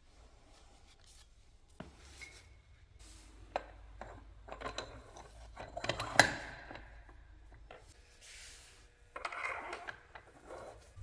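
Hand work on scooter drivetrain parts: irregular rubbing and scraping with scattered clicks and small knocks. The sharpest knock comes about six seconds in, and short hissing rubs follow later on.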